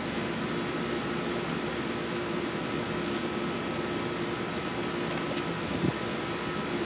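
Window air conditioner running with a steady hum and a few held tones; a short thump about six seconds in.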